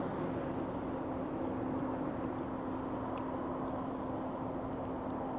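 A steady mechanical hum with a low, even tone in it.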